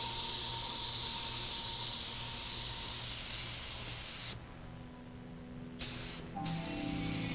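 Paint spray gun hissing as light grey paint is sprayed on. It stops about four seconds in, gives a short burst, stops again, then carries on spraying.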